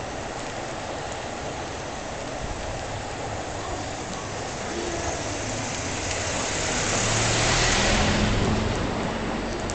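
A vehicle passes unseen, its noise and low hum swelling to a peak about eight seconds in and then fading, over a steady background hiss.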